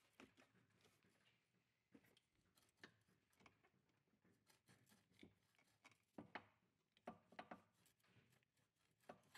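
Near silence, broken by faint, scattered clicks and light knocks as a coil-over rear shock absorber is handled at its suspension mounts.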